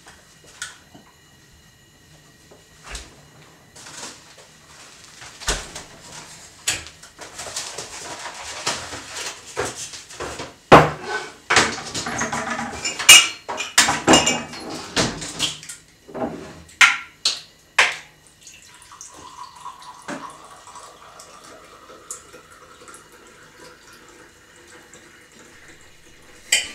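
Plates, pots and cutlery clinking and clattering in a small kitchen: scattered sharp knocks that come thick and fast in the middle, with a rushing wash under them, then thin out to occasional clinks.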